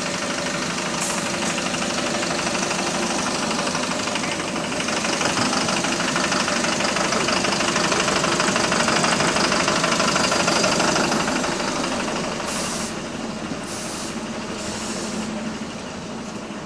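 The bus's diesel engine running with a loud, rapid knocking, a rod knock. It grows louder through the middle and eases off again, with a few short hisses near the end.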